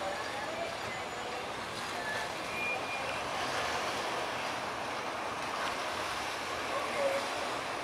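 Cabin cruiser motoring slowly past: a steady wash of engine and wake noise.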